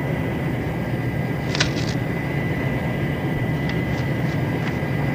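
Steady drone of an aircraft's engines heard inside the cockpit, with a faint thin whine. Paper crackles a few times over it as a sealed envelope of orders and a map are handled.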